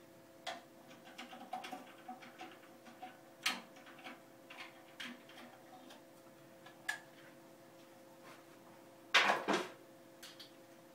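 Screwdriver backing screws out of an overhead projector's head: small irregular clicks and ticks of metal on metal. About nine seconds in comes a louder clatter of knocks as the removed head is set down, over a steady low hum.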